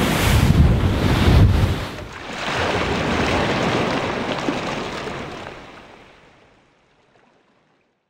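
Wind buffeting the microphone over sea water rushing past a racing yacht's hull, heavy and rumbling at first. About two seconds in it gives way to a softer, steady rush of water that fades to silence near the end.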